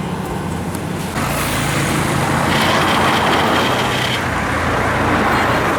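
Vehicle engine running steadily with road traffic noise. About a second in, a louder rush of noise sets in, and a thin high whine is held briefly in the middle.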